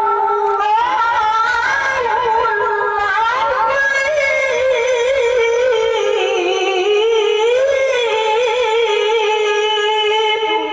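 A woman chanting the Qur'an in melodic tajwid recitation into a microphone, holding one long, unbroken phrase with wavering, ornamented pitch that climbs about three seconds in. The phrase breaks off near the end.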